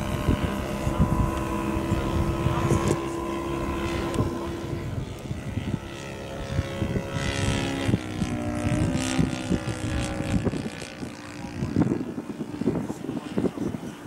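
Radio-controlled 1:6 scale Hawker Hurricane model flying overhead, its Laser 150 four-stroke glow engine running steadily. The engine note drops in pitch in steps about a third of the way in and again past halfway as the plane passes.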